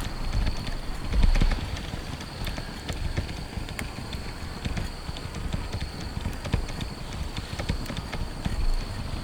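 Raindrops tapping irregularly on tent fabric, many sharp drops a second, over a steady high-pitched tone. A low thump about a second in is the loudest sound.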